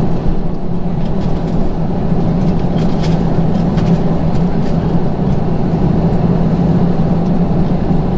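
Steady cabin noise inside an Airbus A321 on the ground before takeoff: a constant low rumble with a steady hum and a few faint ticks.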